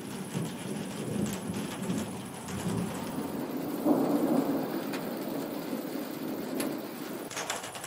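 Thunderstorm: steady rain with rolling thunder, the rumble swelling again about four seconds in.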